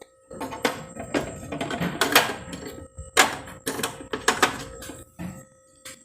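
Containers and food items clattering and knocking as they are handled and set down in a refrigerator: a quick, irregular run of knocks and rattles that stops near the end.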